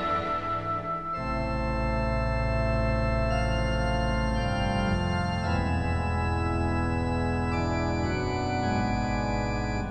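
Background music of long held chords that change every second or two.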